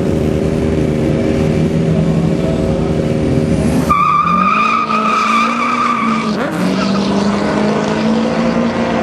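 A diesel pickup truck and a car idle at the drag-strip start line, then launch about four seconds in. The engines rev hard under a high, steady squeal that lasts about two seconds, the pitch drops briefly at a gear change, and the engines pull away.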